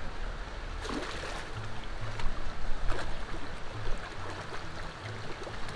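Background music with a steady low beat, over the rush of water, with a few sharp splashes or knocks.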